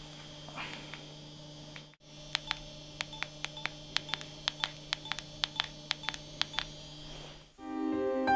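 Mobile phone keypad beeps as a number is keyed in: a quick run of about twenty short beeps, starting about two seconds in. Piano music comes in near the end.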